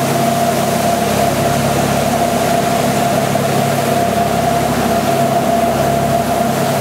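Fishing boat's engine running steadily under way, with the rush of water and wind and a steady higher whine above the engine note.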